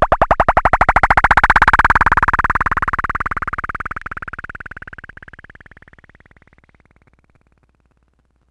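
Synthesized cartoon sound effect: a rapid train of short chirps that speeds up and rises in pitch while fading away over about seven seconds.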